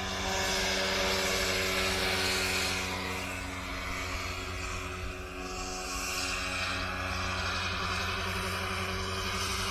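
Large electric RC model helicopter, a 1:7 scale AgustaWestland AW139, flying past. A steady motor whine runs under the rotor hiss, which swells over the first couple of seconds, dips about halfway through, then holds steady.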